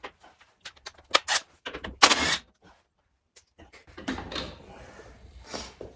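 Hand tools working on a car's sway-bar end link nut: a series of irregular metal clicks and clinks, then softer handling knocks and rustling as the end link comes loose.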